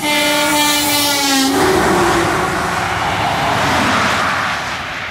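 Semi truck horn blowing once for about a second and a half, its pitch dipping slightly near the end as the truck passes. The rush of the tractor-trailer going by at highway speed follows and fades.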